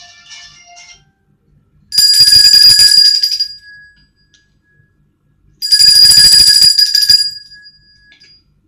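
An alarm-clock bell rings loudly in two bursts of about a second and a half each, the second starting about two seconds after the first ends. Each burst is a rapid rattling ring.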